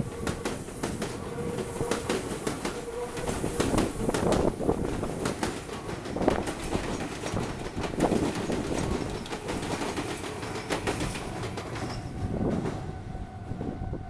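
Meitetsu electric train passing close by, its wheels clattering over the rail joints in a run of rapid clicks. Near the end the clatter fades and a steady high tone begins.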